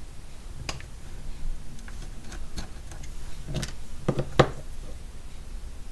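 A few scattered light clicks and taps of small tools and parts being handled on a workbench, the loudest a sharp knock about four and a half seconds in.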